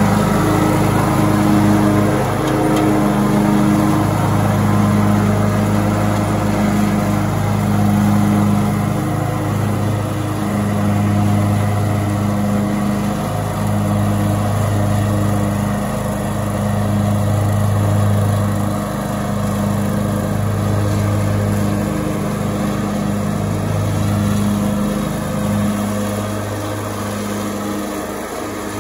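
Troy-Bilt riding lawn mower's engine running steadily as the tractor drives across the lawn, with a low, even hum that grows a little quieter near the end as it moves away.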